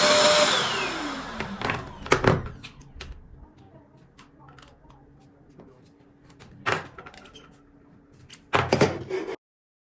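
A 1600 W vacuum cleaner's motor switched off, its whine falling in pitch as it spins down over about a second. A few sharp knocks and clatters follow, the loudest run near the end, before the sound cuts off suddenly.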